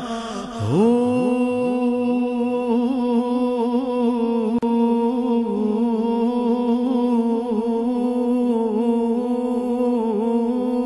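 A long, wordless devotional 'Hu' chant: a voice swoops up into one steady note about half a second in, with echoing repeats of the swoop, and holds that note with a slight waver. There is a brief click about halfway through.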